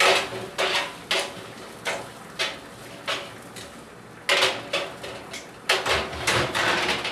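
Metal kitchen tongs clinking and scraping on a metal baking sheet as roasting fingerling potatoes are rolled around on it, a run of sharp knocks about half a second apart. There is a louder scrape about four seconds in and a cluster of knocks near the end.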